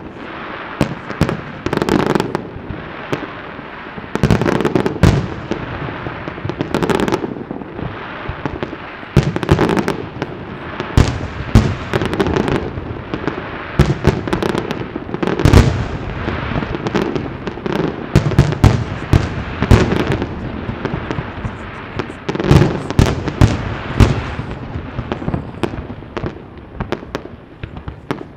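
Fireworks display: aerial shells bursting one after another in a dense barrage of loud bangs, thinning out near the end.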